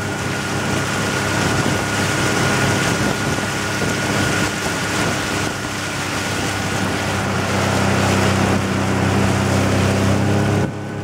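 Boat outboard motor running steadily, with wind buffeting the microphone; the motor gets a little louder late on, then the sound drops suddenly just before the end.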